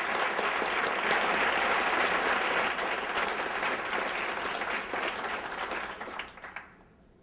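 Audience applauding: a dense patter of many hands clapping that dies away about six seconds in.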